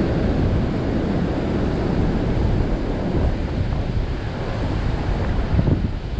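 Fast river water rushing and churning into white water, with wind buffeting the microphone.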